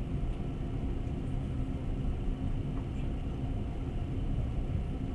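Passenger train running, a steady low rumble of wheels on rails heard from inside the carriage.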